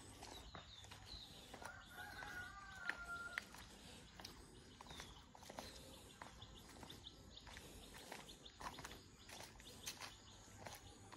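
Faint footsteps crunching on dry leaf litter, with a distant rooster crowing once, about two seconds in, and a few short high bird chirps early on.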